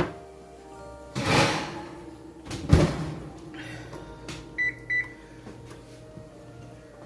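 Oven door opening with a short rush of noise, a sharp clunk of the baking pan, then two short electronic beeps from an appliance control panel.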